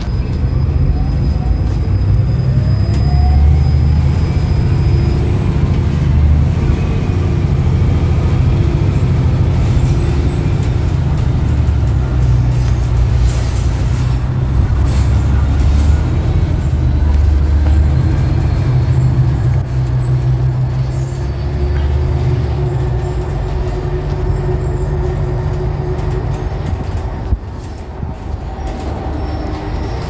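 Cabin sound of a New Flyer XDE60 diesel-electric hybrid articulated bus with a BAE hybrid drive, under way: a steady low engine rumble, with whines from the drive that rise and fall in pitch. A short click comes near the end, and the rumble drops for a moment after it.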